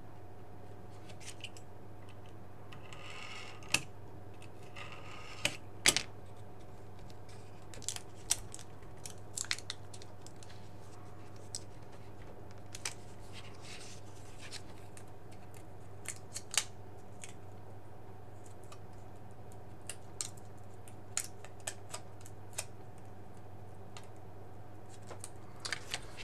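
A craft knife and steel ruler working a thin plastic gel filter sheet on card: two short scraping strokes of the blade a few seconds in, and scattered light clicks and taps of the ruler, knife and plastic being handled.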